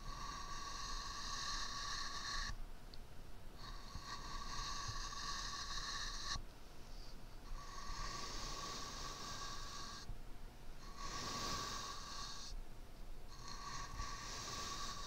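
Makeup brush stroked over the microphone: long swishing strokes of two to three seconds each, with short pauses between them, about five in all.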